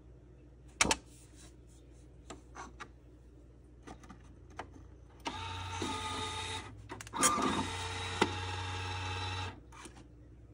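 Time card dropped into the slot of a Lathem 7000E time clock with a sharp click, then the clock's motorised card feed and print mechanism runs in two steady whirring stretches, about a second and then about two seconds, as it stamps the punch time on the card.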